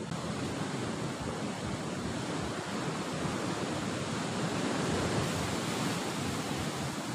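Surf breaking and washing below a rocky sea cliff: a steady, continuous rush of waves.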